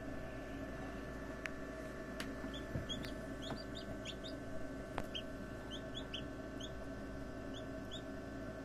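Newly hatched chicks in an incubator peeping in quick runs of short, high calls, starting about two and a half seconds in, over a steady hum, with a few faint clicks.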